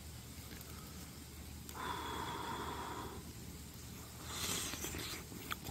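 A person eating soup from a spoon: a breathy slurp or blow lasting about a second and a half near the middle, and a shorter, hissier one about a second later.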